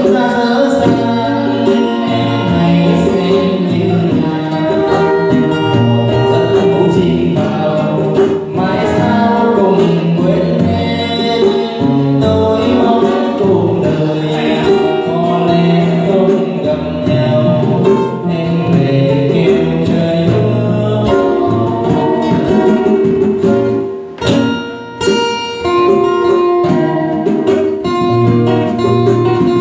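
A male singer performing a Vietnamese bolero live through a microphone, accompanied by two strummed and plucked acoustic guitars and a hand drum.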